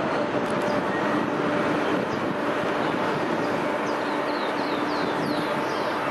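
Steady outdoor rumble with a faint steady machine hum under it, and short high falling bird chirps, a quick run of them about four to five seconds in.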